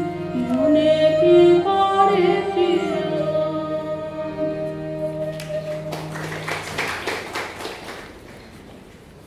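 A woman singing a Bengali song, accompanied by harmonium and esraj. The music ends about five or six seconds in, and a stretch of noise follows that dies away.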